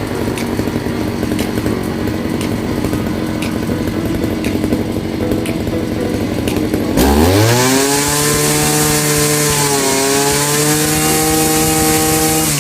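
Husqvarna 541RS brush cutter's two-stroke engine running at low revs, then throttled up sharply about seven seconds in and held at high revs, dipping briefly near ten seconds in.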